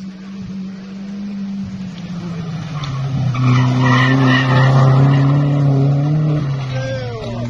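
A slalom competition car running the course, its engine at steady revs growing louder as it comes close and loudest about four to six seconds in, with its tyres squealing through a turn, then fading.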